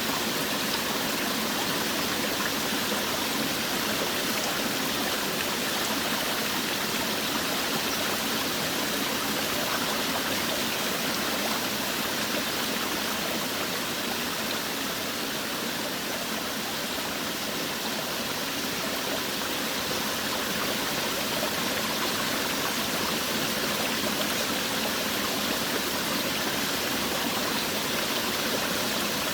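Forest waterfall and stream running steadily: a constant rush of falling and flowing water with no breaks.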